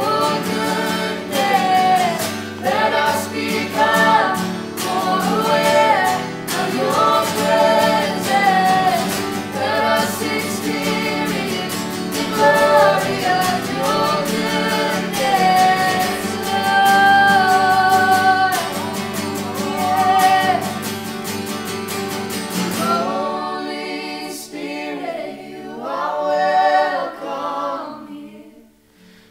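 A small worship band singing to acoustic guitars, several voices in harmony. About three-quarters of the way through the accompaniment drops away and the voices carry on nearly unaccompanied, falling quiet near the end.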